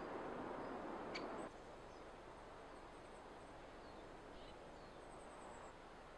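Forest ambience: a steady rushing hiss that drops to a quieter level about one and a half seconds in, with small birds calling faintly: a sharp chip early, a few soft chirps, and a quick high trill of about six notes near the end.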